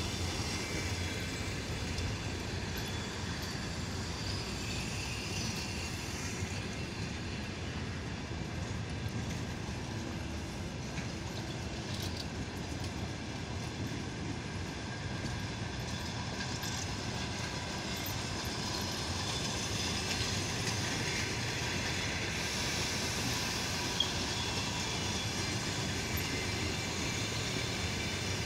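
Passenger coaches rolling slowly past on the track behind a shunting locomotive: a steady rumble of wheels on rails, with one sharp click about 24 seconds in.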